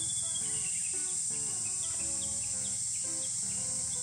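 A steady, high insect drone, with background music of short repeating chords under it.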